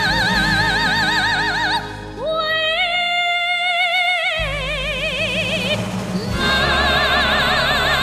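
Background music: a song with long held notes sung with wide vibrato over a steady accompaniment, the melody sliding up to a new note about two seconds in and changing again near the end.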